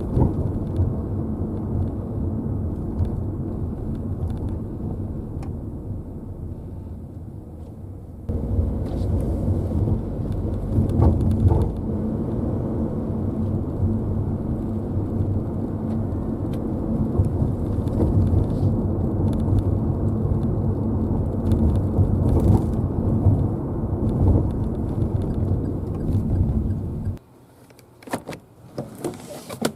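Cabin noise of a Daihatsu Rocky 4WD driving over rough pavement: steady low road rumble with rattling and clunking knocks from the rear of the car. The rattle is the sign of rear-seat latches sitting out of position and not seating properly. Near the end the noise cuts off suddenly.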